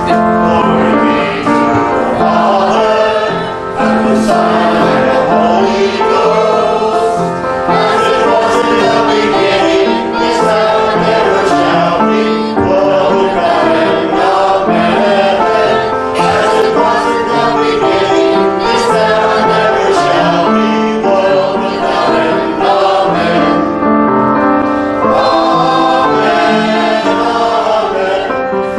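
Congregation of men and women singing a hymn together with piano accompaniment.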